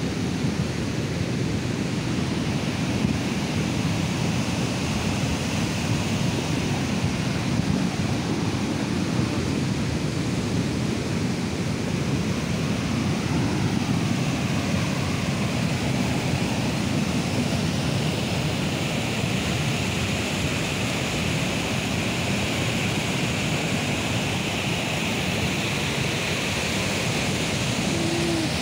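Steady, unbroken rush of flowing floodwater from a swollen stream or river close by.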